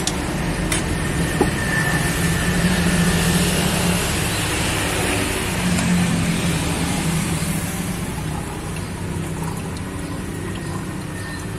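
Road traffic: a motor vehicle's engine running close by, swelling for a few seconds and then fading away, with a couple of light knocks near the start.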